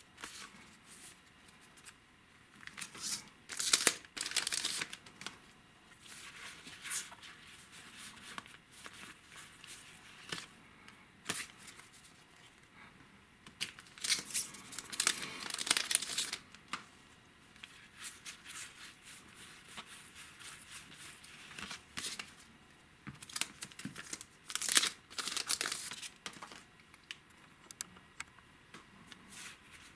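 Trading cards being handled and sorted by hand onto piles on a tabletop: intermittent papery slides, taps and rustles, with louder flurries about four seconds in, around the middle and near the end.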